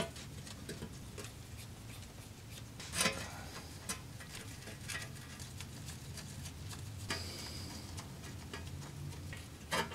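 Faint clicks and light metallic taps of small bolts being handled and started by hand into a transmission oil pan, the loudest tap about three seconds in, over a low steady hum.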